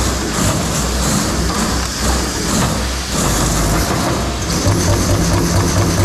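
CNC turret punch press rapidly punching a perforated hole pattern into stainless steel sheet: a loud, steady run of fast punch strokes over the machine's running noise. About four and a half seconds in, the strokes settle into a more even, rapid beat.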